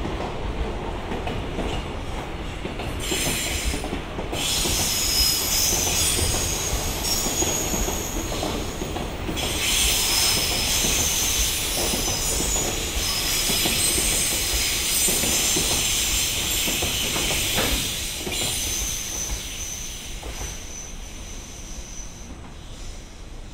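Freight train rolling slowly past, its wheels squealing high and shrill over a steady rumble of the wagons. The squeal sets in about three seconds in, grows stronger a few seconds later and dies away near the end as the train moves off.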